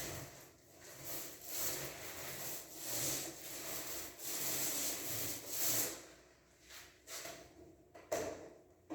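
Repeated rasping strokes of a tool spreading wall putty across a wall, roughly one a second, fading after about six seconds; a short knock about eight seconds in.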